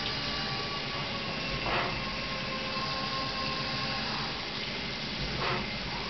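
Fadal CNC machining centre cutting metal keeper bars under flood coolant: a steady machine noise with a high, even spindle whine. Two brief louder rushes come about two seconds in and near the end.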